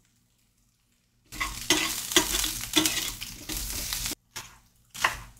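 Diced onions sizzling in a stainless steel skillet as a utensil stirs them, scraping the pan in about two strokes a second. The stirring starts about a second in, breaks off suddenly about four seconds in, and is followed by two short scrapes.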